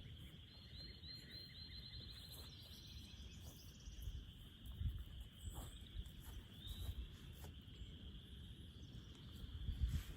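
Faint rural outdoor ambience: a steady high-pitched chorus of calling animals, with a quick trill of repeated chirps about half a second in, over an uneven low rumble.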